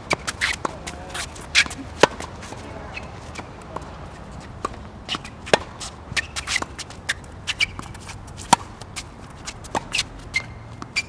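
Tennis rally on a hard court: sharp pops of racket strings hitting the ball, each followed by the ball bouncing, with footsteps and shoe scuffs on the court between strokes.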